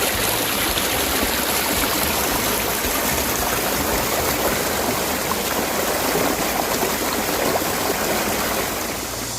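Mountain valley stream with water rushing steadily over rocks.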